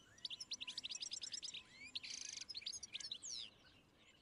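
Songbirds singing: a quick run of high chirps, a short buzzy trill about two seconds in, then a few falling whistles that stop about three and a half seconds in.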